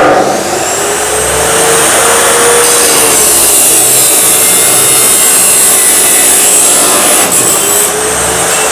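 DeWalt D28870 14-inch abrasive chop saw starting at once and running with a steady motor whine, its cut-off wheel grinding through a round metal pipe with a harsh hiss over the middle seconds. Near the end the wheel comes free and the motor pitch begins to fall.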